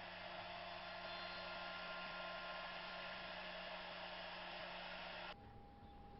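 Small CNC router spindle running steadily with a whirring hum and a few faint steady tones, cutting off abruptly about five seconds in.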